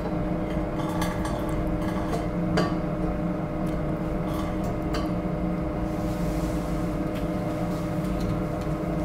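Steady hum of a fume hood's extraction fan, with a few faint clinks of glass as concentrated ammonia solution is poured from a brown glass bottle into a large Erlenmeyer flask.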